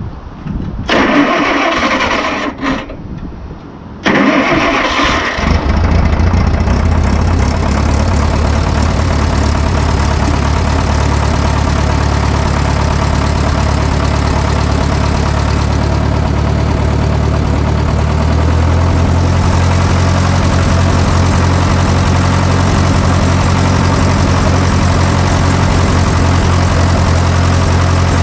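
Stump grinder's engine cranked over in two short bursts and catching about four seconds in, then running steadily; its note shifts a little over halfway through.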